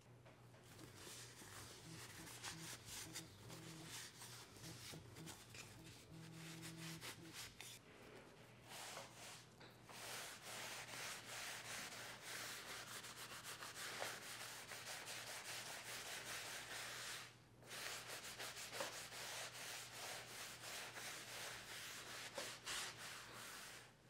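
Cloth rubbing and buffing oiled wooden utensils and a bamboo cutting board: a scratchy run of quick rubbing strokes, louder from about ten seconds in, with a short break around seventeen seconds.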